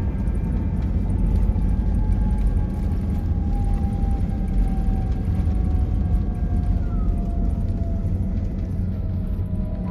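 Jet airliner cabin noise: a steady low rumble with a thin engine whine slowly falling in pitch.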